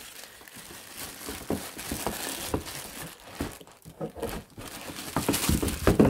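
Clear plastic wrapping crinkling and cardboard rustling as a hand works a boxed upright vacuum cleaner loose, in irregular scrapes and crackles.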